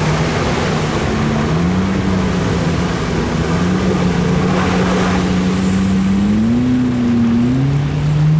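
Off-road 4x4's engine running, its pitch stepping up about a second and a half in, wavering near the end and then climbing as it is revved, under a steady rushing noise.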